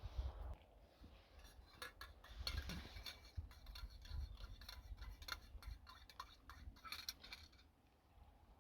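A spoon clinking and scraping against camping cookware: a run of faint, irregular light clicks.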